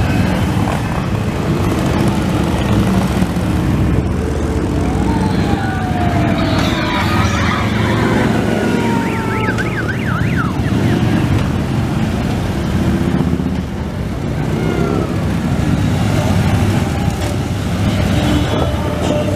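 A steady stream of Harley-Davidson V-twin motorcycles riding past at low parade speed, their engines making a continuous deep rumble. About a third of the way through, a falling, siren-like tone is heard, followed by a brief wavering one.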